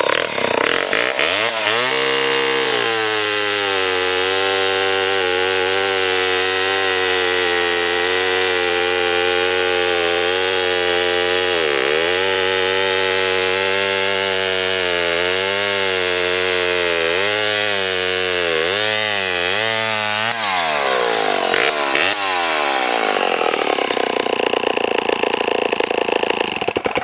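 Restored 1963 Remington Super 880 two-stroke chainsaw cutting wood with a 1/2-inch pitch chain. The engine pitch drops as the chain bites, dips and wavers under load, then falls away about 20 seconds in.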